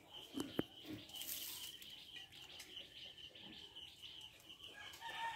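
Faint, steady insect chirring, a fast pulsing trill, over quiet outdoor background with a few soft knocks and rustles early on. Near the end a steady pitched call or tone begins.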